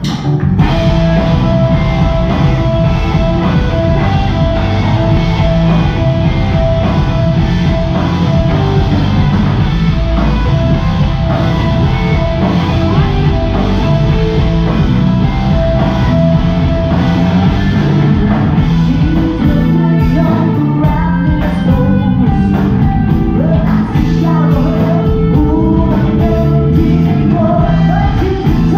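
Live rock band with electric guitars, bass and drums, starting all at once and loud. A long held note sounds over about the first half; from about two-thirds through, the drumming turns choppy and a singer's voice comes in.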